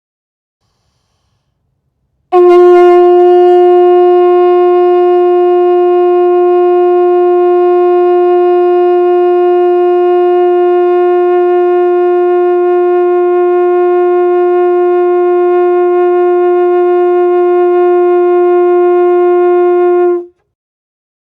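Conch shell blown in one long, steady note. It begins about two seconds in, slightly louder at the start, holds at one pitch for about eighteen seconds, then cuts off near the end.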